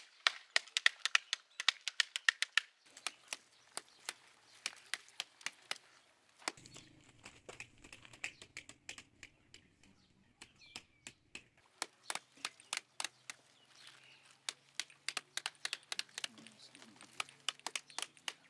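Pomegranates being broken open and their halves struck with a plastic scoop to knock the seeds out: quick sharp taps and cracks, several a second, with crackling of the rinds.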